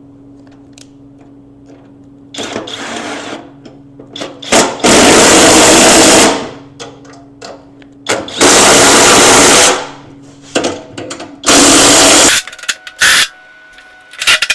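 A handheld power driver run in three loud bursts of a second or so each, with a shorter, quieter burst before them, driving bolts during assembly of the plow.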